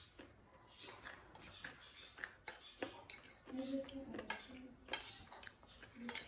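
Metal fork clicking and scraping against a plate, with close-up mukbang eating and chewing sounds; a short low hum about halfway through.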